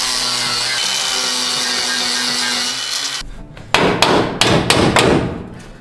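Cordless angle grinder grinding the sheet-metal floor of a truck's cargo area down to bare metal to prepare it for welding, with a steady high whine; it stops abruptly about three seconds in. About half a dozen sharp metal clanks and knocks follow.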